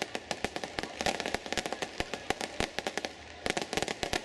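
Fireworks display going off: a dense, rapid run of sharp cracks and pops, many a second, with a brief lull about three seconds in.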